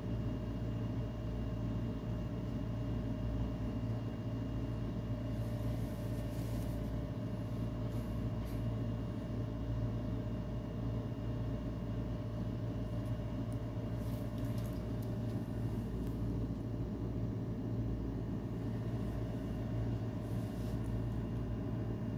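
Steady low mechanical hum with a few faint, even higher tones above it, unchanging in level.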